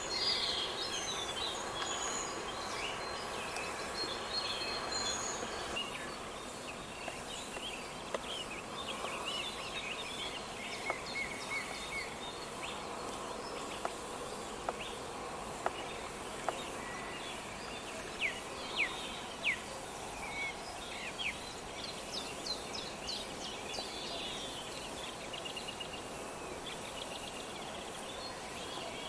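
Summer forest ambience: several birds chirping and calling over a steady background hiss. The calls are thick at first, thin out after a few seconds, and pick up again later with quick falling notes.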